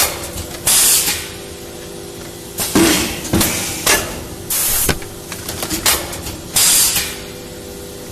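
Plastic bento-box forming machine running through its cycle: sharp bursts of air hiss, three times, with mechanical knocks and clatters between them, over a steady motor hum.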